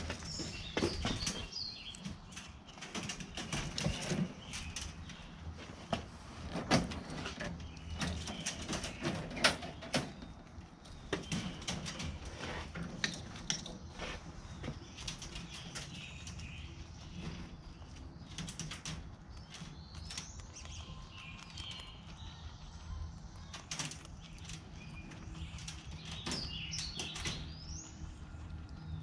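Rabbit chewing and tearing fresh weeds up close, with irregular crunching and rustling of the leafy stems, busiest in the first half. A few bird chirps come in toward the end.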